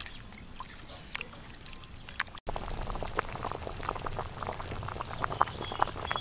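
Black chicken herbal soup boiling in an aluminium pot, with a dense, steady popping of bubbles that sets in suddenly about two and a half seconds in. Before that, a metal ladle stirring the herbs gives a few soft clicks and sloshes.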